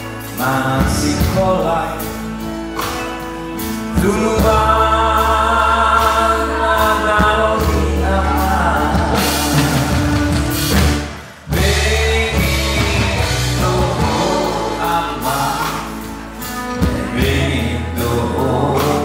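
A man singing into a microphone over a musical accompaniment with a steady beat, the music dipping briefly about two-thirds of the way through.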